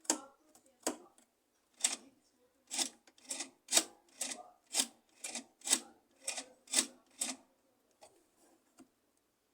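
The reassembled agitation mechanism of a Consul 8 kg washing machine being worked back and forth, giving short rasping scrapes, a few at first and then about two a second, stopping a little after seven seconds in. The test shows a part of the mechanism not dropping back as it should.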